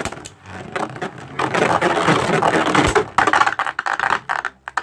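Spriggan Requiem and Revive Phoenix Beyblade tops spinning and clashing in a plastic Beyblade Burst stadium: a dense run of rapid clicking hits and scraping. It grows louder from about a second and a half in.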